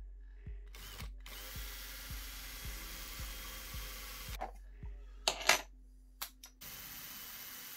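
Circuit-bent cassette Walkman playing through its modded EQ: a low thump repeating about twice a second over a steady hum, with a burst of hiss for a few seconds. Near the end come a few loud sharp clicks, then the pulse stops and only a steady hiss is left.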